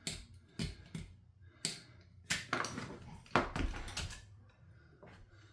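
Hand tools clicking, tapping and scraping on the metal parts of a chainsaw as caked-on gunk is picked out, in an irregular run of sharp clicks over about four seconds.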